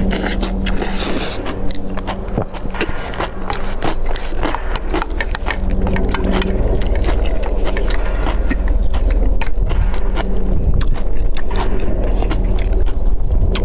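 Close-up eating sounds: a spoon scraping and clicking against a bowl, with chewing, over a steady low rumble.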